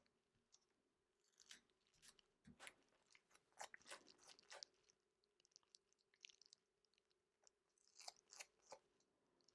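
Faint crinkling and crackling of paper and adhesive tape handled by hand. The quick crackles come in a spell from about a second and a half in to nearly five seconds, and again briefly around eight seconds.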